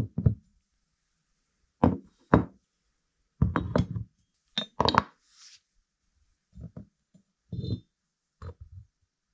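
Metal housing parts of an Ingersoll Rand 2190Ti impact wrench being set down and shifted on a workbench: a series of irregular knocks and clunks.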